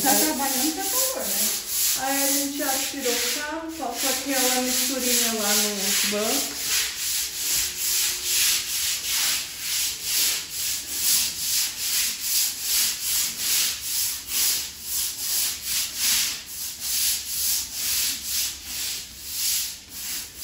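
Stiff plastic-bristled broom scrubbed back and forth over a wet tiled floor: a rhythmic rasping swish, about two strokes a second. A voice sounds over the first six seconds or so.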